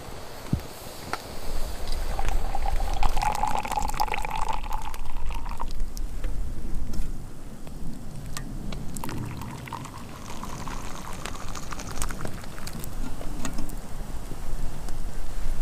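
Water poured from a metal kettle into a steel camping mug of tea, in two pours, over scattered sharp clicks.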